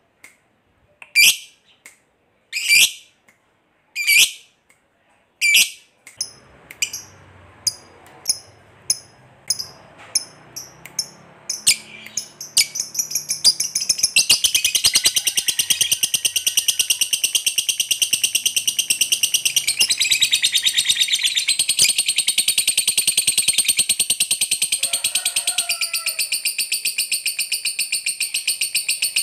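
Lovebird calling: at first single sharp shrieks about a second and a half apart, then quicker, shorter chirps, which about halfway through run together into a long, unbroken, rapid chatter, the 'ngekek panjang' of a lovebird in full song.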